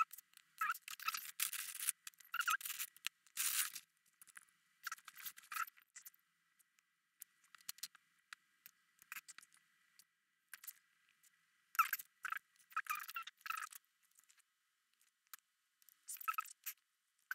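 Wax crayon scribbling on paper in short bursts of scratchy strokes, with quiet pauses between them.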